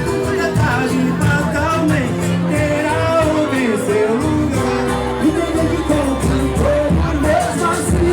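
Live pagode band playing, with voices singing over it.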